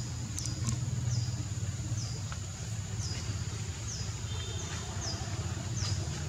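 A high insect buzz, steady but stepping down in pitch about once a second in a regular rhythm, over a louder steady low rumble.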